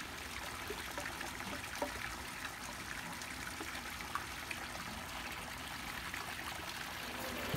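Water trickling steadily from the spout of a small rock fountain into its pool.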